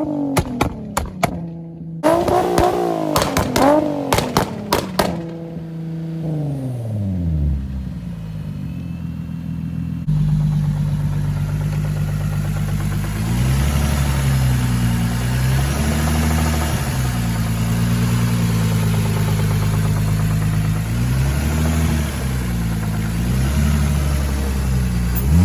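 Infiniti G35's VQ35 Rev Up V6 revving hard twice, with sharp clicks through the high revs, then the revs falling away. After a cut, the engine runs with repeated rises and dips in revs. This is an engine with rod knock, and the owner says he hears it knocking.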